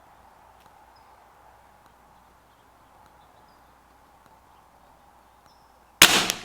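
A single shot from a CZ 457 AT-ONE .22 LR rifle firing standard-velocity SK Pistol Match Special match ammunition, a sharp crack with a short echo tail, about six seconds in after quiet outdoor background with a few faint high chirps.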